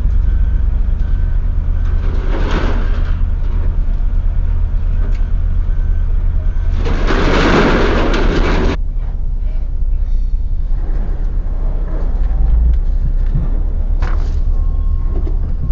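Vehicle engine running with a steady low rumble. About halfway through comes a loud hiss lasting about two seconds.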